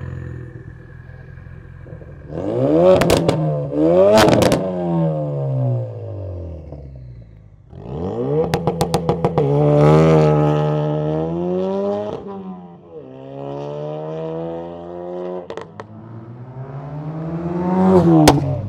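Ford Focus RS 2.3-litre turbocharged four-cylinder through an MRT Extreme stainless-steel cat-back exhaust. It idles, then is blipped twice, about three and four seconds in. It then pulls away hard with a burst of crackles, its pitch rising and dropping through the revs, and near the end it accelerates past and falls away.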